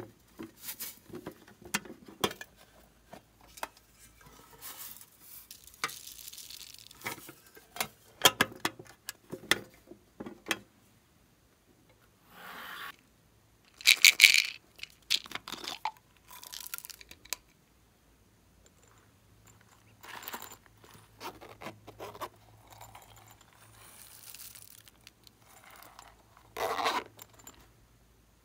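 Hands handling and opening tin and plastic slime containers: scattered clicks, taps and scrapes of lids and cases. About halfway through there is a louder rustling burst lasting about a second.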